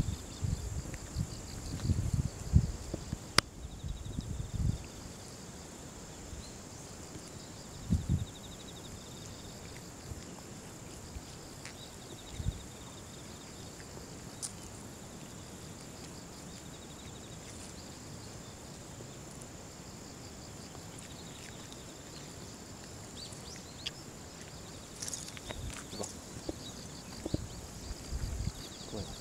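Autumn field insects calling steadily: a continuous high-pitched buzz with repeated pulsing trills beneath it. Low rustles and bumps come now and then, heaviest in the first few seconds.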